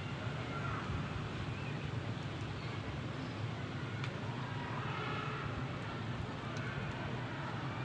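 Fire burning in a chulha under a karahi: a steady low rumble and hiss, with two sharp crackles.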